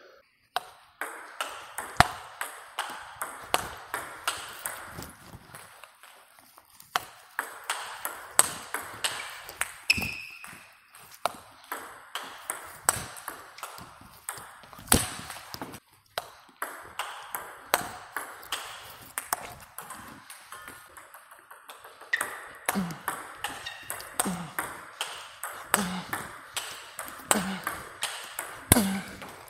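Table tennis rally: the ball clicks off the rackets and bounces on the table in a quick, regular back-and-forth, with brief breaks about six and sixteen seconds in.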